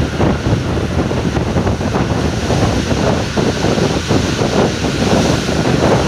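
Wind buffeting the microphone of a phone held out of a moving bus window, a loud, fluttering rush, with the bus's road and engine rumble underneath.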